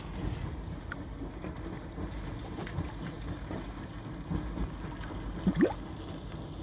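Water gurgling and sloshing around a small fishing boat, with scattered small knocks and clicks, and a short rising squeak about five and a half seconds in.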